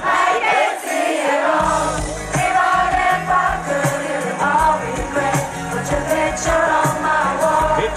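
Live concert music heard from the crowd: the slow sung chorus between rap verses, a singer's voice over keyboards, bass and a steady drum beat through the PA. The bass and low end drop out briefly near the start.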